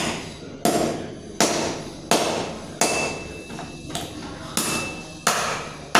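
Goat hips being chopped through bone and cartilage in a steady series of about nine hard strokes, roughly one every 0.7 seconds, with a brief high ring after two of them.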